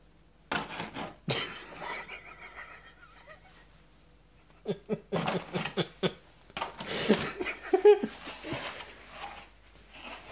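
A person laughing in several bursts, giggling with short pulsed breaths, loudest a little before the end. A couple of sharp knocks sound in the first two seconds.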